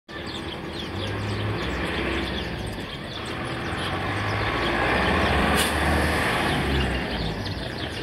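Motor vehicle engine running nearby, its hum swelling through the middle and easing off near the end, with a few bird chirps.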